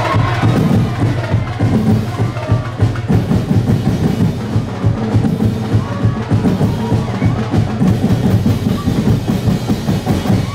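Drums and percussion playing a fast, steady Sinulog street-dance beat with a prominent bass drum. It cuts off suddenly at the end.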